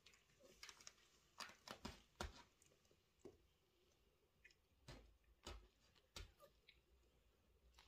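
Near silence with faint, scattered scratches and rustles from a kitten's claws catching on the fabric wall of a pet playpen and on a fleece blanket.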